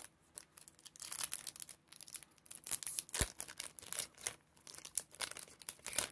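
Foil Topps Chrome card pack wrapper being torn open and crinkled as the cards are pulled out, with one dull knock about three seconds in.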